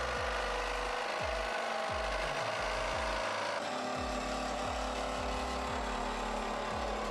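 Reciprocating saw cutting through a car's sheet-metal roof, its motor running with a steady whine over the rasp of the blade; the pitch changes abruptly about three and a half seconds in.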